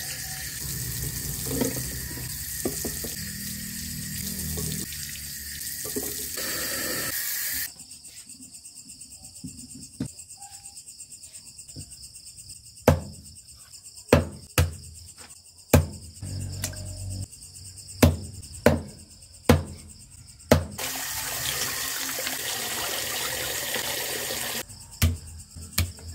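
Tap water running over raw chicken being washed by hand. It stops and a cleaver chops the chicken on a wooden chopping block in sharp single strokes, roughly one a second, with crickets chirping steadily behind. The tap runs again for a few seconds, and a few more chops on the block come near the end.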